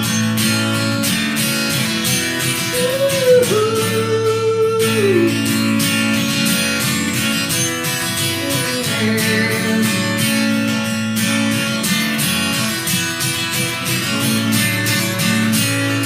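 Acoustic guitar strummed steadily through an instrumental break in a song, with one melody note that bends and is then held for a couple of seconds, about three seconds in.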